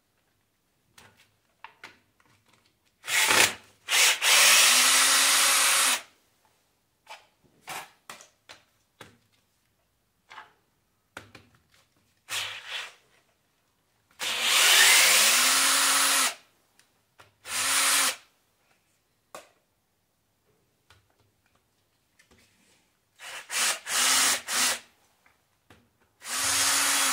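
Cordless drill with a socket extension spinning out bolts on the tractor's cast iron oil pan, run in repeated bursts of half a second to two seconds. Each burst rises in pitch as the motor spins up, with light metal clicks between the bursts.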